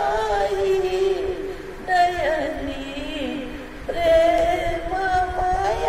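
An elderly woman singing a Marathi hymn solo, in long held notes that slide in pitch, with new phrases starting about two and four seconds in.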